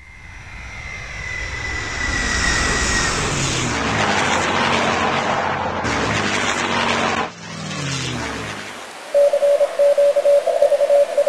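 Airplane engine noise building up and holding loud, with a whine that falls slightly in pitch over the first few seconds; it cuts off about seven seconds in. Near the end a rapid series of beeps starts, like a radio signal.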